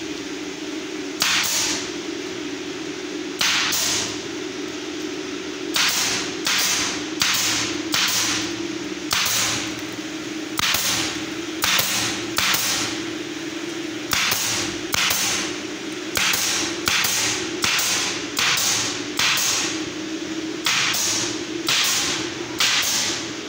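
An F50G pneumatic brad nailer fires repeatedly, driving brads into a laminate-faced board. Each shot is a sharp crack followed by a short hiss of exhaust air. There are about two dozen shots, irregularly spaced, often coming in quick runs of about two a second.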